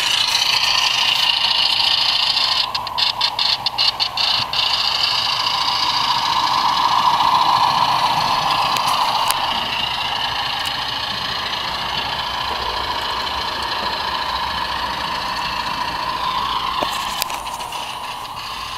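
HO-scale model locomotive running on the layout: a steady mechanical running sound with no deep tones, flickering in and out rapidly about three to four and a half seconds in, loudest around the middle, then easing off.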